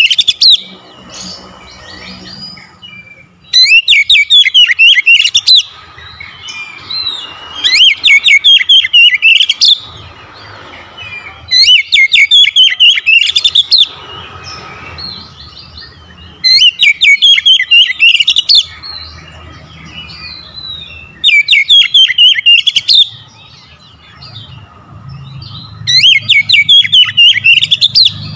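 Oriental magpie-robin singing: loud bursts of fast, high repeated notes about two seconds long, coming roughly every four seconds, with softer scattered calls in between.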